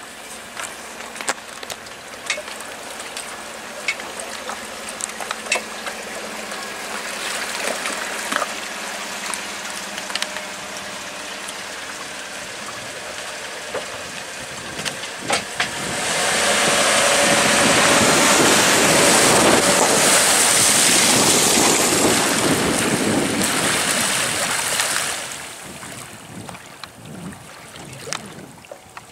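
A trailered fishing boat being backed down a ramp and floated off into a lake, with wind on the microphone. Scattered clicks and rattles come first, then a loud rushing noise for about nine seconds from a little past the middle, which dies down near the end.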